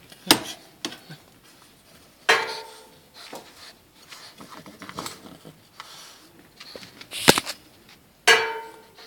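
Sharp metallic clanks, four of them, two ringing briefly, as a Boston terrier knocks against the wire bars of its pen and paws at a steel food bowl outside, with quieter scraping and rustling between.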